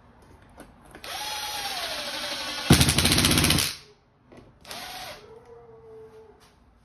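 Cordless impact driver driving a screw. The motor whines, its pitch dropping as the screw takes up load, then the impact mechanism hammers rapidly for about a second as the screw seats, and stops abruptly. A second, shorter spin follows about a second later.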